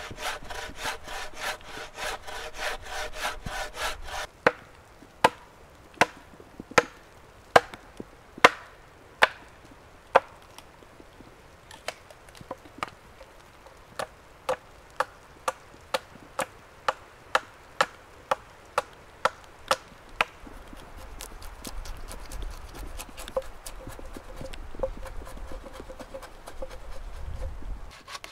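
Woodcutting in three parts. First a saw ringing as it cuts fast through a log, then a hatchet striking into wood, with loud single chops and then lighter, quicker strokes nearly twice a second. Near the end comes the steady rasp of a wooden bow saw cutting into a fallen conifer trunk.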